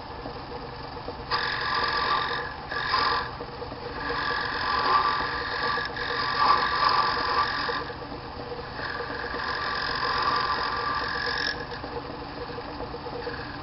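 Small lathe running with a steady hum while a toothed blade held against the spinning bone scrapes and rasps in several spells of a few seconds each, cutting into the base of the bone pawn.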